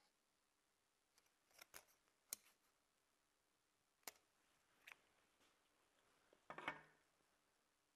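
Faint, sparse snips of scissors cutting small triangular notches into thin aluminium drink-can metal: a few separate sharp clicks spaced a second or more apart, then a short cluster of snips about six and a half seconds in.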